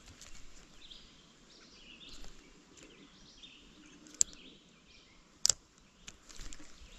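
A few sharp clicks from a spinning reel being handled: one about four seconds in, then two close together about a second and a half later. Faint bird chirps sound in the background.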